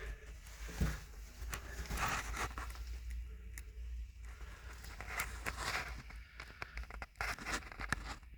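Irregular scraping, rustling and crinkling, with sharp clicks and knocks, over a low steady hum: the sounds of someone moving and handling things in a cramped space.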